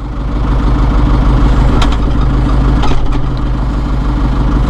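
A John Deere 4.5 L PowerTech diesel tractor engine running steadily, heard from inside the cab. Its sound builds over the first second as the hydraulics lift the 553 front loader.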